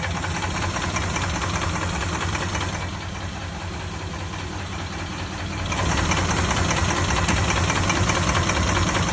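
2003 Dodge Durango's 4.7-litre V8 idling with a fast, even tapping from the engine, a tap that remains after the rebuilt head, new lifters, timing chain kit and oil pump. It grows louder about six seconds in.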